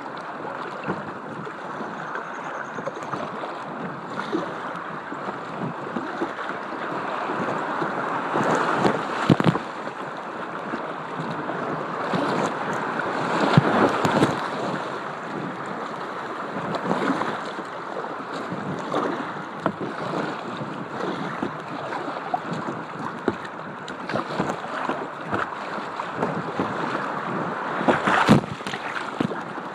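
Whitewater rushing and splashing around a kayak running a rapid, with wind on the microphone. Several louder surges of splashing, as water and paddle strokes break over the deck.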